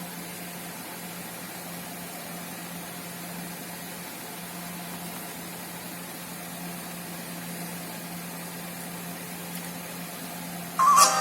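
Steady low electrical hum with a faint hiss. Near the end, guitar music suddenly starts playing loudly from the Sony Vaio laptop's speakers as they are tested after re-soldering.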